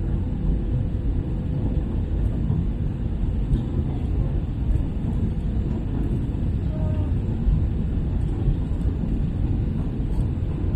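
Steady low rumble inside the cabin of an Airbus A321-200 airliner, from its engines and the airflow or runway roll.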